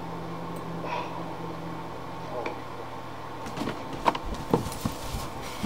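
Steady low electrical hum of room tone, then about three and a half seconds in, a run of rustling, knocks and clicks as a person shifts on a bed and reaches for the computer.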